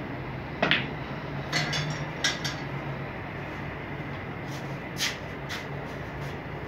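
Snooker shot: the cue tip strikes the cue ball with a sharp click just over half a second in, followed over the next two seconds by several lighter clicks of the balls knocking together and meeting the cushions. A few more scattered clicks come near the end, over a steady low hum.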